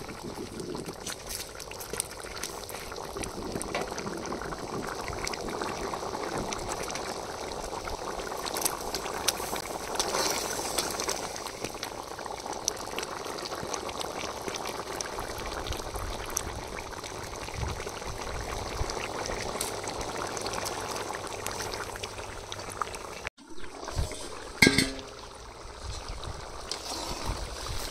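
Rabbit curry gravy bubbling steadily as it simmers in the pot, with a brief break about 23 seconds in.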